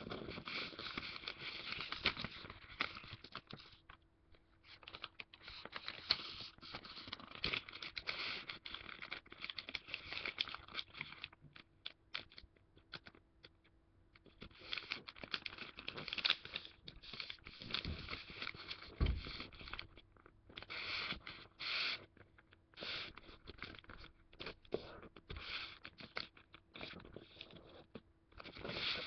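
Origami paper rustling and crinkling as hands fold and press down pleated creases, with fingers scraping along the folds. It comes in stretches of several seconds with short pauses between them.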